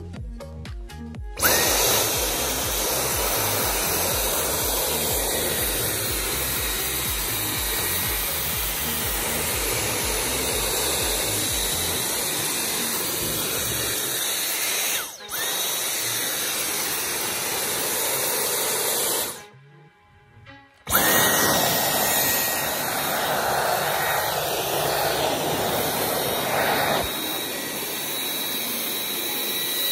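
Dyson Cyclone V10 cordless stick vacuum switched on about a second and a half in, running with a steady high whine over a rush of suction air. It dips briefly near the middle, cuts out for about a second around two-thirds through, then starts again.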